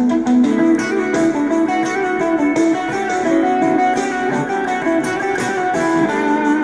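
Electric guitar through a Keeley-modded BOSS BD-2 Blues Driver overdrive pedal in its phat mode, playing an improvised lead line in D. A louder phrase starts at once, with picked notes moving over a held low note.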